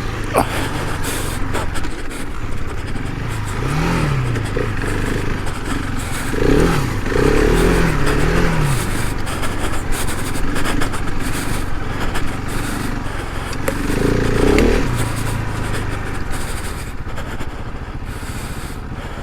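Adventure motorcycle engine running under way, its revs rising and falling several times, loudest about six to nine seconds in and again near fifteen seconds. Scattered clicks and scraping ride over a steady rumbling haze.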